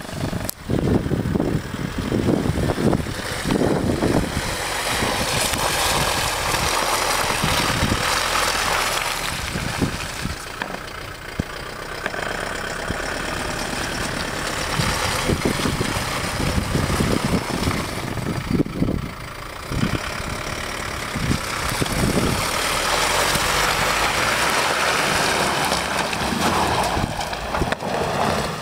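Opel Campo pickup's 76 hp turbo-diesel engine revving up and easing off repeatedly as the truck drives through mud.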